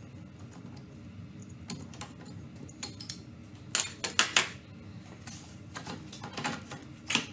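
Metallic clinks and clatters from handling aluminium tube and steel bender parts, with a quick cluster of sharp clinks about four seconds in and another near the end.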